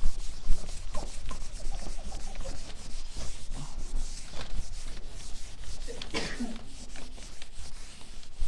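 Felt whiteboard eraser rubbing across a whiteboard in repeated wiping strokes, clearing the written list from the board.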